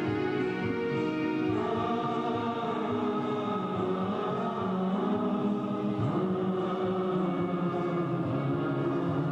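Church choir singing a hymn, with long held notes.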